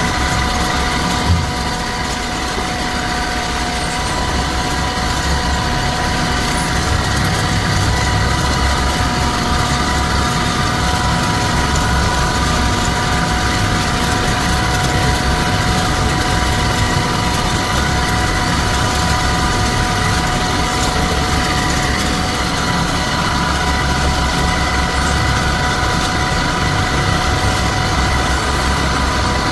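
Wood lathe running steadily as lacquer is applied to a spinning charpai leg: the motor gives a constant whine over a low rumble. There is one short knock about a second in.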